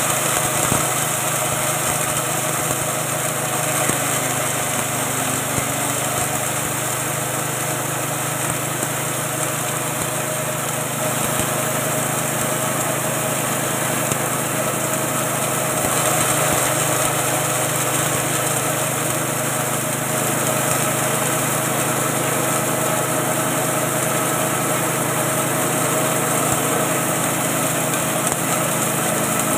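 Small 6.5 hp petrol engine running steadily under load, driving the grinding mill of a 3-in-1 feed machine as ground meal pours out of its chute.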